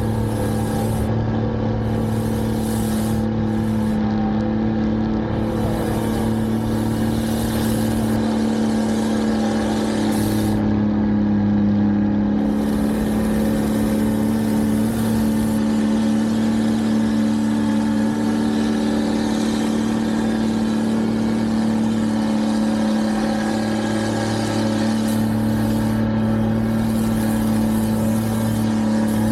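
Snow-removal machinery's engine running at a steady speed, a constant low drone that does not change pitch.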